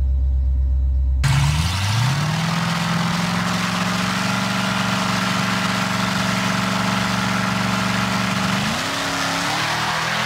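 Drag race between a Dodge Demon and a Tesla: a low engine rumble at first, then after an abrupt cut a car running hard at speed. Its pitch climbs, holds steady for several seconds, then shifts near the end.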